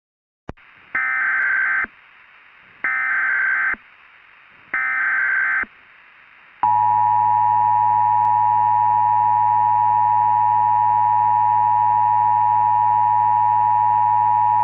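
Emergency Alert System tones: three short bursts of screeching digital SAME header data, each about a second long, follow a click. About six and a half seconds in, the steady two-tone EAS attention signal starts and holds, marking the start of an emergency alert.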